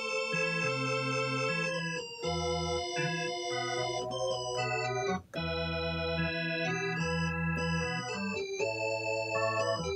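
Elka X-50 electronic organ played with both hands: held chords over a low bass line, changing every second or so, with a brief break about five seconds in.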